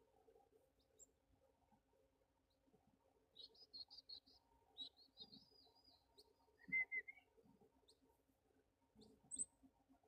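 Small wild birds calling: a quick run of short high chirps a few seconds in, then a brief trill, a louder, lower call about seven seconds in, and a single very high chirp near the end.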